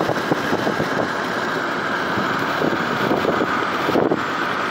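Steady road and engine noise of a car driving along, heard from inside the cabin.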